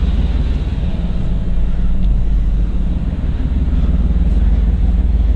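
The 1988 Chevrolet Suburban's engine idling steadily, a low rumble with a fine, even pulse.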